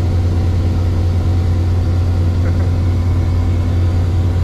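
Light helicopter's engine and rotors running steadily, heard from inside the cabin: a loud, even hum with a strong low drone.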